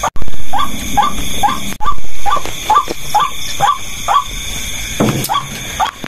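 A white-breasted waterhen call played on a loop through a small electronic bird-caller speaker: short rising squawks, about three a second, over a steady high insect drone.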